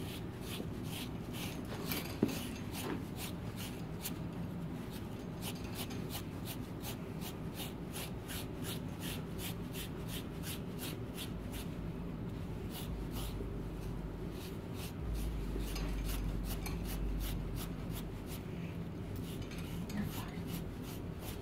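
Andis undercoat rake dragged in short, repeated strokes through an Airedale terrier's wiry coat, about three strokes a second, scraping as it pulls out undercoat. A single knock about two seconds in.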